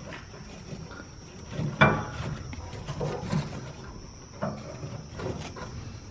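Scattered knocks and clatter of objects being handled, the loudest knock about two seconds in, over a faint steady high tone.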